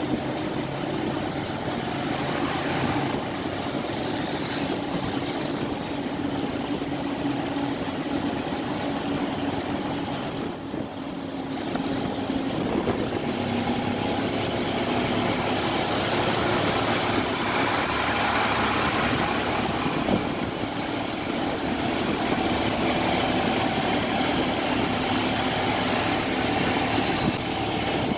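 City road traffic heard from inside a moving vehicle: engines running and steady road noise, with a brief lull about ten seconds in.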